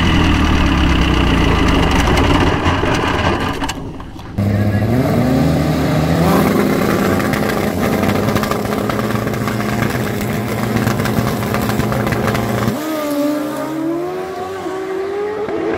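Turbocharged Suzuki GSX-R1000 drag bike engine holding steady high revs, then after a brief drop about four seconds in, climbing in pitch as it accelerates hard down the drag strip. Near the end the engine note turns thinner and wavers up and down.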